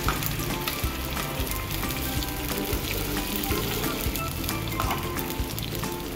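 Onions and garlic in a little water sizzling in a nonstick frying pan as sweet-and-sour sauce is poured in and stirred with a spatula, which clicks and scrapes against the pan. Background music plays under it.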